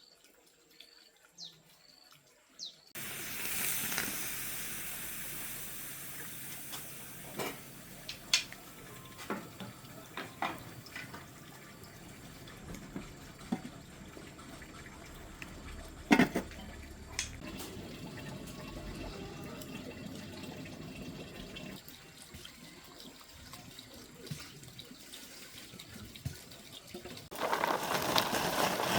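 Running water starts suddenly about three seconds in and flows steadily, with scattered knocks and clicks over it; it grows louder near the end.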